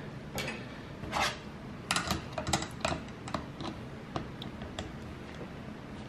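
Scattered metallic clicks and taps of a nut driver fitting onto and turning the screws of a dishwasher's pump and motor assembly, snugging them down so the housing won't leak. The clicks come irregularly and bunch together about two to three seconds in.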